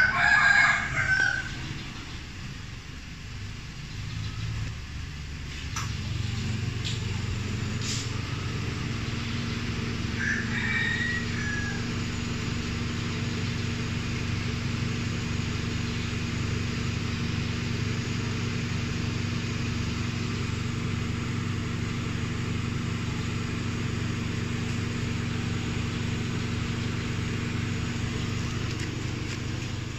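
A rooster crows loudly right at the start and again more faintly about ten seconds in. From about five seconds in, a steady low hum sets in and holds.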